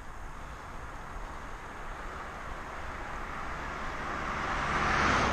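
A car approaching from ahead and passing close by, its tyre and engine noise swelling steadily to a peak near the end.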